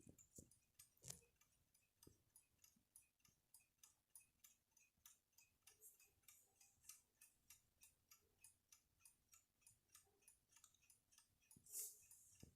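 Antique Schattan mechanical alarm clock ticking faintly and evenly, about four ticks a second. A brief rustle comes near the end.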